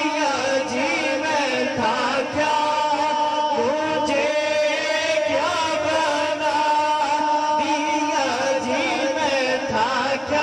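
Unaccompanied Punjabi naat chanted by male voices through microphones: a lead voice in a wavering, ornamented melody over steadily held notes from the backing singers.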